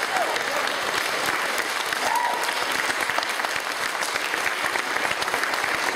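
An audience clapping steadily in sustained applause, with a brief voice calling out about two seconds in.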